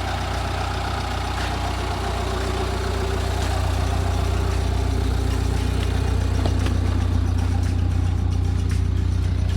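Tata Safari SUV's engine running steadily with a deep, even drone, getting slightly louder over the first few seconds.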